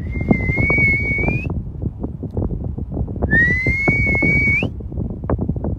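A person whistling two long, steady notes to call a herd of Boer goats in; the second note slides up at the start and end. Wind rumbles on the microphone underneath.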